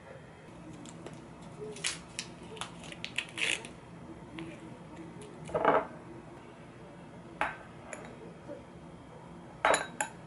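Tableware sounds: a metal knife and fork clinking and tapping against a plate and a small glass bowl, in scattered clicks and knocks. There is a louder knock about halfway through and a quick pair of clinks near the end.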